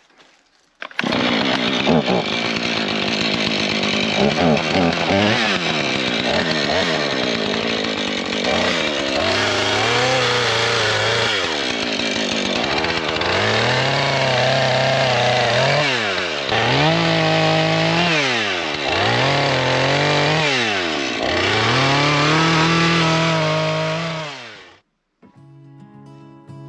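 Chainsaw running and cutting firewood, its engine pitch dipping and climbing back up again and again. It starts about a second in and cuts off abruptly near the end.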